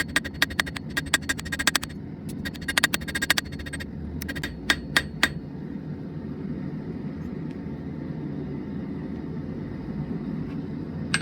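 Hammer striking a hot drill-bit blank on an anvil in quick runs of blows, each with a bright metallic ring. The blows stop about five seconds in. A steady low rumble runs underneath throughout.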